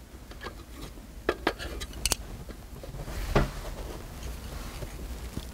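Chopsticks and tableware being handled: a few sharp clicks and clinks about a second and two seconds in, then a louder brief handling noise a little past three seconds.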